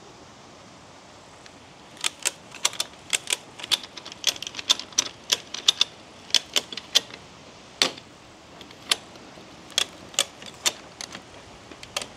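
Ratchet strap being tightened: the ratchet handle is worked in strokes and gives sharp metallic clicks. The clicks start about two seconds in, come in quick clusters, then slow to single clicks about a second apart as the strap pulls the leaning shed frame back into line.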